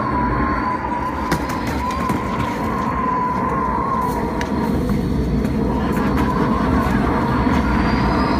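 Recorded tornado sound effect played loud: a continuous wind roar with a steady, slightly wavering high whistling tone that fades out about halfway, and a few light knocks.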